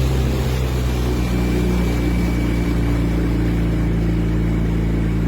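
Boat engine running at a steady speed, a low, even engine note.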